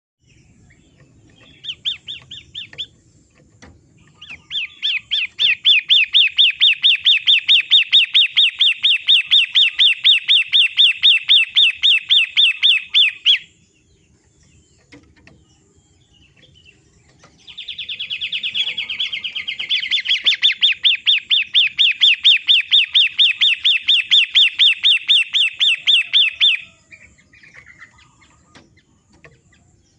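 Long-tailed shrike (pentet) song: a short burst, then two long runs of fast, evenly repeated rising chirps, each run lasting about nine seconds. This is a birdkeepers' therapy recording meant to get a caged bird singing.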